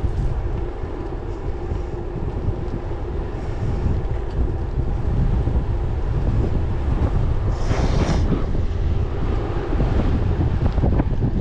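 Wind buffeting the microphone of a bicycle riding on a paved road at about 25 km/h, as a steady low rumble, with a brief louder hiss about eight seconds in.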